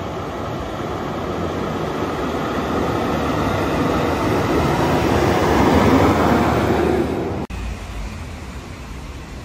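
Backhoe loader driving through floodwater: its engine and the pushed water make a steady noisy rush that grows louder as it comes closer. The sound cuts off abruptly about three-quarters of the way through and gives way to a quieter, steady low rumble.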